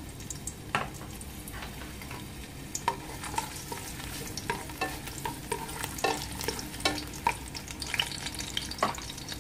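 Chopped onion frying in hot oil in a pan: a steady sizzle with sharp, irregular crackles and pops.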